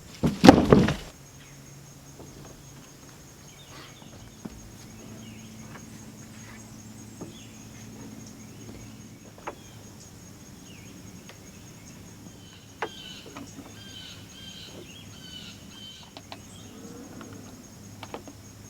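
A brief loud thump at the very start, then woodland ambience: a steady high insect drone, with a bird calling in a run of short repeated notes over the last several seconds.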